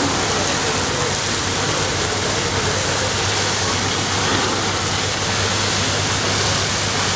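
Several fire hoses spraying water, a loud, steady rushing hiss, with a steady low hum underneath.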